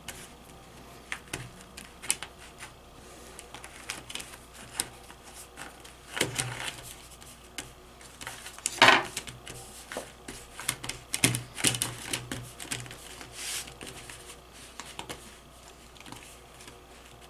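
Fingers pressing pizza dough into a disposable aluminium foil pan, the thin foil crinkling and clicking in irregular taps, with one louder crackle about nine seconds in.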